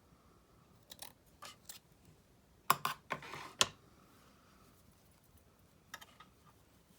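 Craft supplies being handled on a work table: scattered small clicks and taps, with a louder cluster of sharp clicks and a brief scrape or rustle about three seconds in, and a few more clicks near the end.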